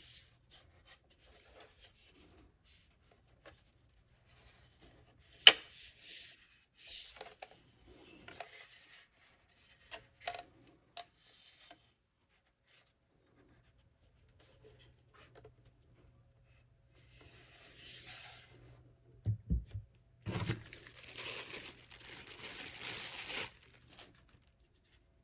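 Handling noises: scattered rubbing and rustling, one sharp click about five seconds in, two low thumps near the end, then a few seconds of rustling.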